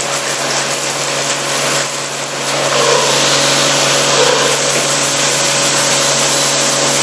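CNC drilling machine's spindle driving a 47 mm drill through 1-inch SA-516-70 steel plate at about 1680 RPM, with coolant spraying hard around the tool. A loud steady hiss of spray over the machine's hum, dipping briefly about two seconds in.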